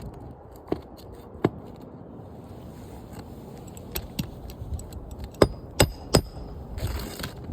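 Sharp knocks and scraping from hand work on asphalt roof shingles, with three knocks in quick succession about two thirds of the way through.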